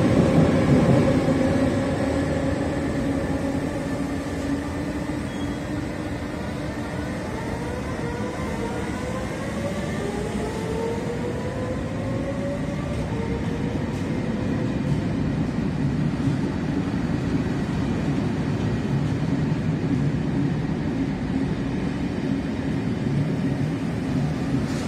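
Double-deck electric multiple unit pulling away from the platform. Its traction motors whine in several rising tones as it gathers speed over the first half, then the carriages rumble steadily past on the rails.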